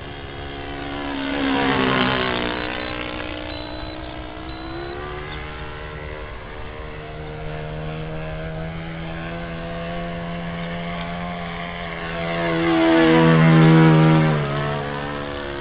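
Saito 6.5 cc four-stroke engine of an old-timer wood-and-fabric model airplane running steadily in flight. It passes close twice, about two seconds in and again near the end, growing loud with its pitch dropping as it goes by.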